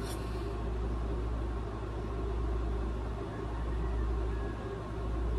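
Steady low-pitched background rumble with a faint hum.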